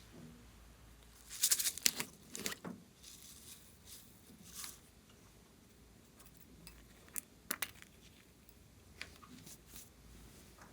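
Slime being mixed and squeezed by hand, giving sticky clicks and crackles: a cluster of them about a second and a half in, another pair about seven seconds in, and scattered faint ticks between.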